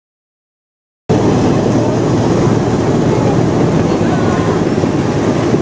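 Silence for about a second, then a miniature railway train ride begins abruptly: a loud steady rumble of the train running on the track, with wind rushing over the microphone.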